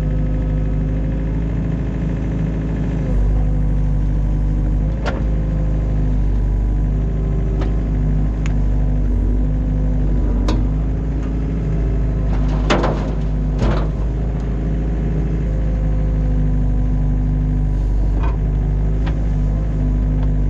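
Excavator's diesel engine running steadily, its pitch shifting slightly as the hydraulics take load, with a few sharp knocks from the machine working, the loudest two close together about thirteen seconds in.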